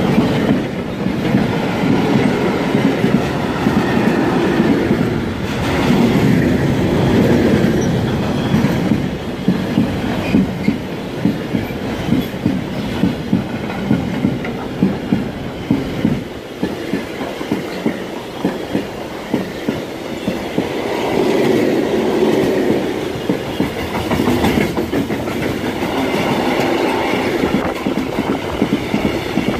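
Freight train of car-carrier and hopper wagons rolling past close by: a steady loud rumble with repeated clickety-clack as the wheelsets cross rail joints.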